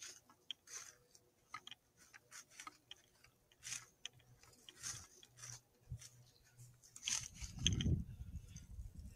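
Faint, irregular crackling clicks and rustles close to the microphone, with a louder low rumble about seven to eight seconds in: handling noise as the thermal scope is moved.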